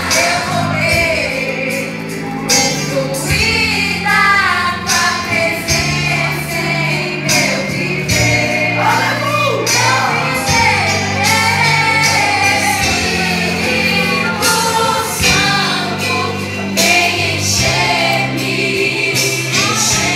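Gospel praise song sung by women's voices over an instrumental accompaniment with a steady bass line and a regular drum beat.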